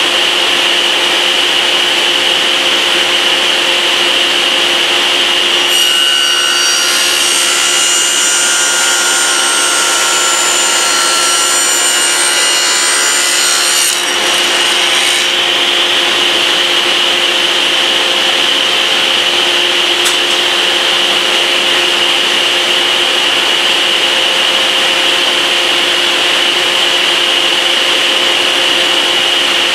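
Table saw and shop dust collector running steadily. About six seconds in, the blade cuts through a small square of maple for about eight seconds, adding a harsh, high-pitched cutting noise, then the saw runs free again.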